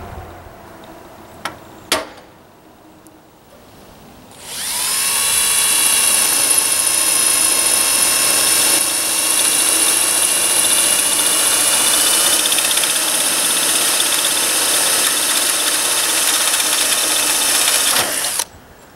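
Handheld power drill with a 1/8-inch titanium-plated bit drilling a pilot hole for a screw through the metal collar of a chimney rain cap. The drill spins up about four seconds in, runs steadily with a high whine for some fourteen seconds, and stops suddenly near the end. Two short clicks come before it.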